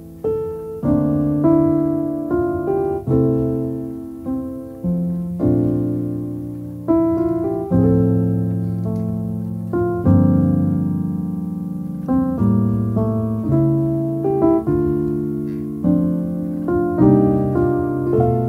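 Background music of solo piano: calm notes and chords struck about once or twice a second, each left to ring and fade.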